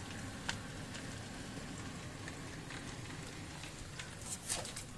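00 gauge model train running on the layout: a steady low rumble with scattered light clicks. A short cluster of louder clicks and rustling comes near the end.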